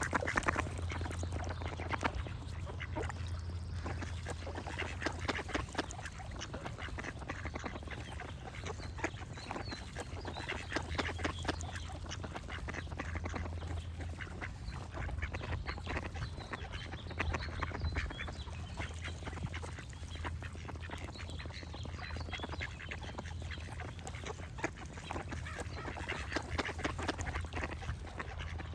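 Ducks quacking over and over, with small birds chirping faintly in the background and a steady low hum underneath.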